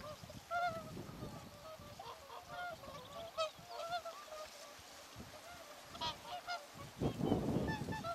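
A flock of swans calling, many short honking calls repeating and overlapping. About seven seconds in, a louder low rushing noise rises under the calls.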